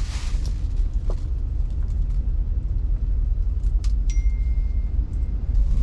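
Steady low rumble of a car's engine and road noise heard inside the cabin in slow traffic, with a few sharp clicks and a thin high beep lasting about a second, about four seconds in.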